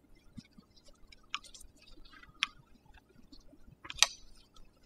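Hydraulic brake lever clamp being twisted along a bike handlebar: scattered small clicks and rubs of the clamp and gloved hands, with a sharper click about four seconds in.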